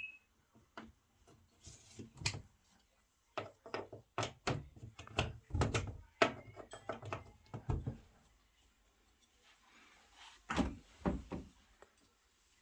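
A string of knocks, clicks and thuds from a door and things being handled, with a quieter stretch about two-thirds of the way through and a few louder thumps after it. A short high beep sounds right at the start.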